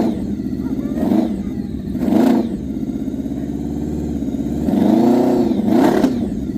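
Supercharged Honda VFR750 drag bike's V4 engine running and being blipped. The revs rise and fall in short bursts about once a second, with a longer rev about five seconds in.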